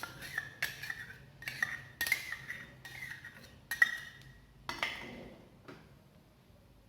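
Metal spoon clinking against cookware about eight times, each knock with a short metallic ring, while semolina is tipped into a kadhai for dry roasting; the clinks stop around five to six seconds in.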